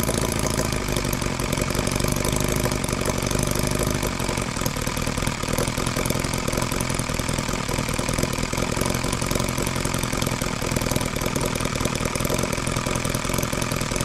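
Holt H75 scale model engine running on Everclear alcohol through a vaporizer carburetor, idling steadily with a rapid, even firing beat.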